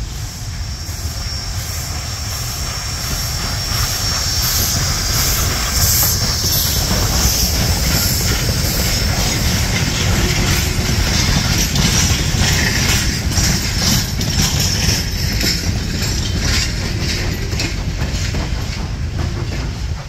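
Pennsylvania Railroad b4a-class 0-6-0 steam switcher working a short train of open passenger cars past: exhaust beating steadily over the heavy rumble and clatter of the wheels on the rails. It grows louder about four seconds in as the cars pass close by, with a thin high wheel squeal around then.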